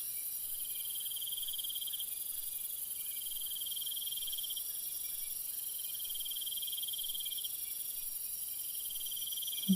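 Crickets chirping: pulsed trills about a second and a half long, repeating with short gaps, over a steady high hiss.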